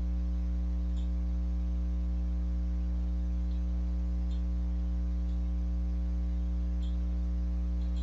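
Steady electrical mains hum with a stack of overtones in the recording, with a few faint clicks scattered through it.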